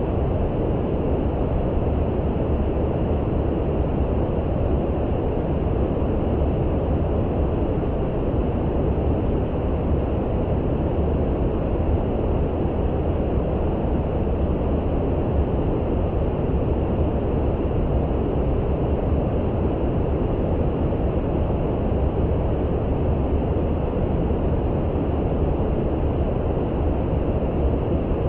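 Steady brown noise: a deep, even rushing hiss, heavy in the low end and dull in the highs, with no changes or breaks.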